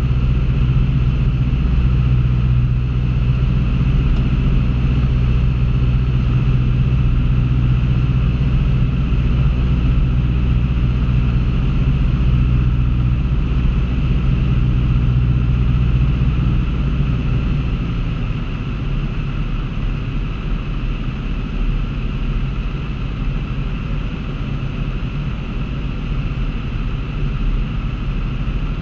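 Single-engine piston airplane's engine and propeller droning steadily, heard from inside the cockpit. About two-thirds of the way through the drone drops lower and a little quieter as engine power is eased back.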